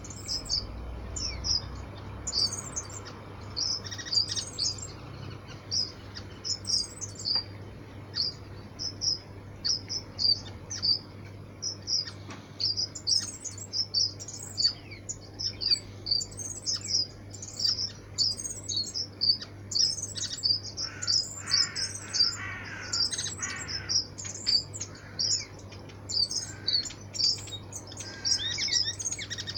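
A flock of waxbills chirping constantly: many short, high, thin calls in quick succession, with a denser burst of calling a little past the middle.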